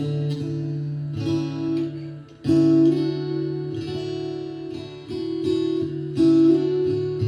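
Yamaha TransAcoustic acoustic guitar strummed, chords ringing on between strums, with the guitar's built-in reverb effect switched on. A new chord is struck about every second, a loud one about two and a half seconds in after a brief lull.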